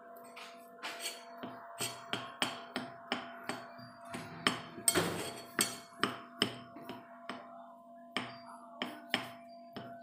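Plastic rice paddle scooping rice out of a rice cooker's metal pot onto a plate: a run of sharp, irregular knocks and taps, about two a second, as it strikes the pot and the plate, with a longer scraping sound near the middle.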